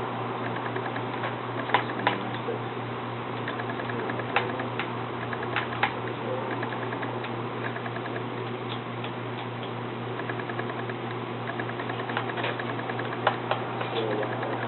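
A few sharp clicks and faint small ticks of laptop parts and tools being handled during disassembly, over a steady low hum.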